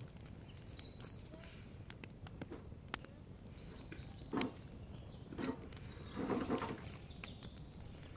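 A long dry wooden branch dragged and scraping over paving stones in three short rough bursts, about four, five and a half and six and a half seconds in, the last the longest. Small birds chirp faintly throughout.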